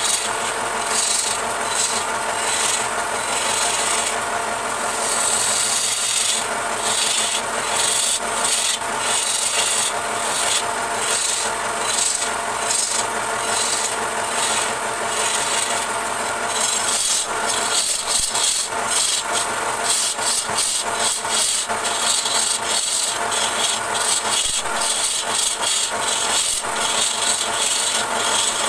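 Wood lathe running while a long steel turning tool cuts into a spinning wooden vase, a steady scraping hiss of the blade shaving wood over the hum of the machine. The cutting comes in short strokes, quicker in the second half.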